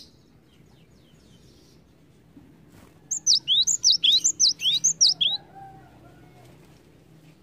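Cinereous tit (gelatik batu) singing a quick run of repeated sharp, high two-part whistled notes, about four a second, starting about three seconds in and stopping after a little over two seconds.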